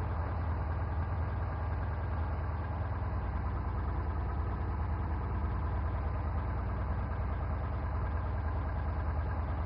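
Single-engine Cessna's piston engine and propeller running steadily at low power while taxiing, heard inside the cockpit as an even low drone.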